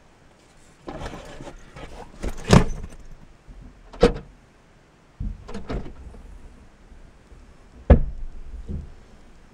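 A duffel bag being put onto a car's back seat, rustling with several thumps, then a car door shutting with a sharp thud about eight seconds in.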